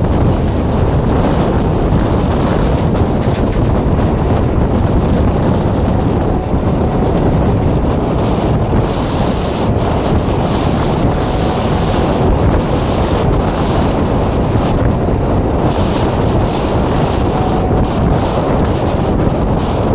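Loud, steady wind buffeting the microphone over the running noise of an electric suburban train travelling at speed, with a second train running close alongside on the next track.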